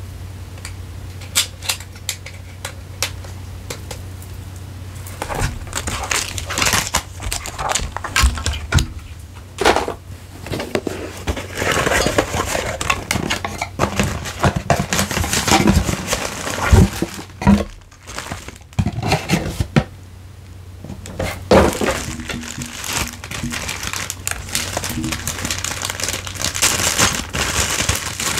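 Camera packaging handled by hand: sparse taps and clicks at first, then about five seconds in a long stretch of crinkling and rustling wrapping, with a couple of louder knocks past the middle. A low steady hum runs underneath.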